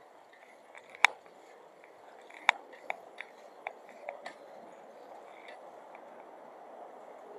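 A string of sharp, irregular clicks and taps, about seven in the first four and a half seconds, the loudest about a second in, over steady background noise.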